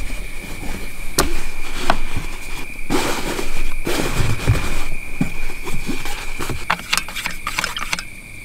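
Fabric rustling with clicks and knocks as privacy curtains are fitted to a car's side windows, busiest about three seconds in and again near the end. A steady high-pitched tone runs underneath.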